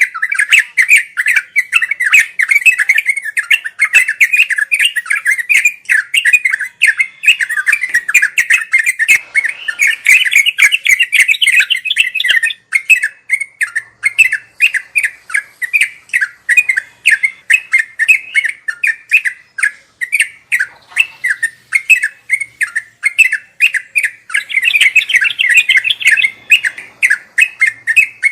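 Yellow-vented bulbul (trucuk) chattering in a fast, unbroken run of short notes, several a second. It gets busier and louder around ten seconds in and again near the end.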